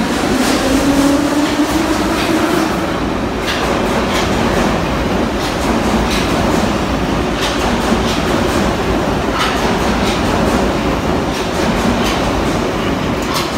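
Soviet-built Em-501/Ema-502/Emkh-503 metro train pulling away and gathering speed. Its motor whine rises in pitch over the first two or three seconds, then gives way to a steady rolling rumble with scattered clicks of wheels over rail joints.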